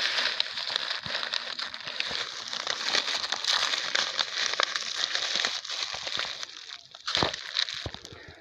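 Plastic rubbish crinkling and crackling without a break as it is carried, dying down about six seconds in, with a single thump a second later.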